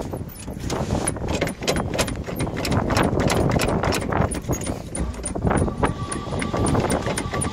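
Square-body Chevrolet pickup's engine being revved by foot on the gas pedal, heard from inside the cab as a fast run of exhaust pulses. It swells from about a second in to a peak around three to four seconds, then rises and falls with the throttle.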